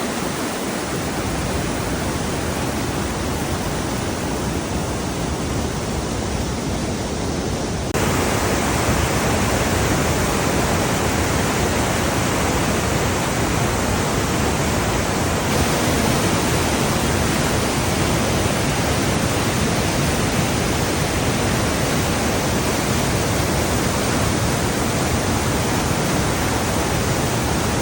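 The Rhine Falls, a large waterfall: a dense, steady rush of falling water with no let-up, turning a step louder about eight seconds in.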